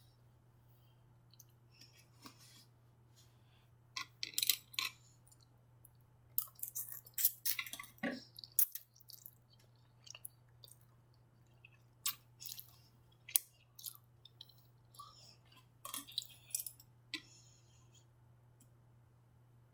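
Close-miked ASMR eating of shrimp lo mein and orange chicken: wet chewing and mouth clicks in four short bursts with quiet gaps between them, over a steady low hum.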